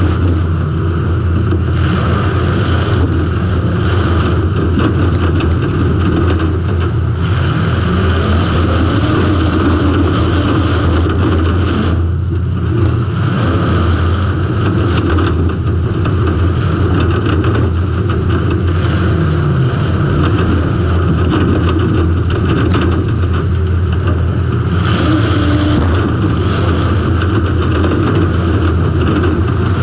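Demolition-derby car's engine running loud and steady, heard through an on-car camera, with brief harsher bursts of noise every few seconds.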